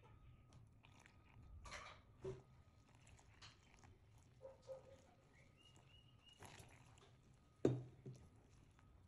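Faint soft rustling and squishing of a hand mixing flour and water in a glass bowl, with one sharp knock near the end as the jug is set down on the table.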